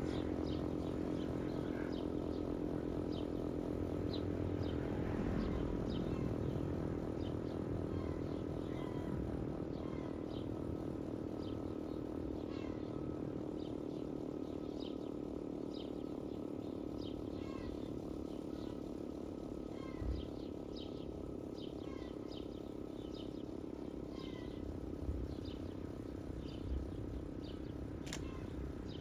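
Klaxon GP8 siren holding a steady tone that slowly grows fainter, with birds chirping in short calls throughout.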